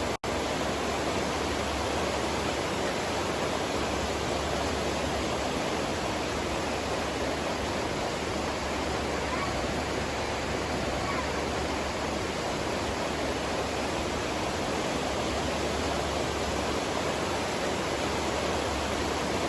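River water flowing, a steady rush with no change, broken only by a momentary dropout just after the start.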